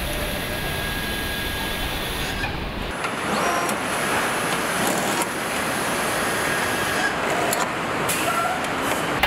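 Car assembly plant floor noise: a steady machinery hum and hiss. About three seconds in, the deep rumble gives way to a brighter hiss, and a few short clicks and hisses from hand tools come near the end.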